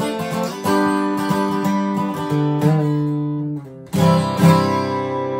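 A 1999 Hummingbird dreadnought acoustic guitar strummed in open 'cowboy' chords, each chord left ringing. The chord changes a little past two seconds in, dies away at about three and a half seconds, and a new, louder strum comes in near four seconds.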